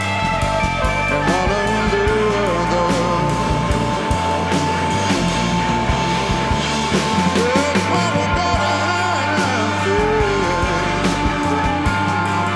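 Rock band playing without words: steady drums under a long held note, with lead lines bending up and down in pitch.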